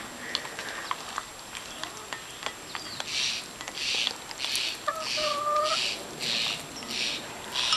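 Hens pecking at yogurt in a small plastic dish, with sharp tapping clicks, and one hen giving a short, level-pitched call about five seconds in. From about three seconds in, a regular scuffing, about one and a half a second, runs alongside.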